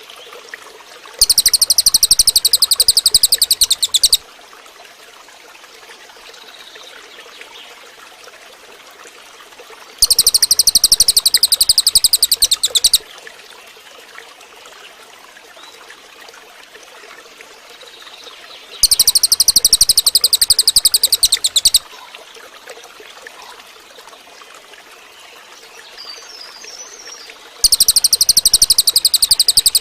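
Cililin songbird giving a loud, rapid, buzzing trill of about three seconds, repeated four times at even intervals about nine seconds apart. A faint steady trickle of water runs underneath.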